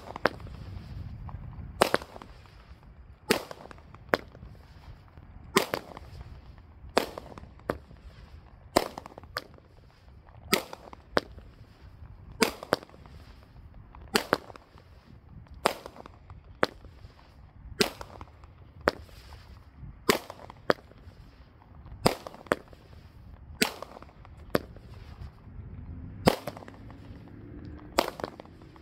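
Brothers Pyrotechnics 'Magic Carpet' 200-gram consumer firework cake firing, its shots going off one after another about once a second, some in quick pairs, as sharp reports.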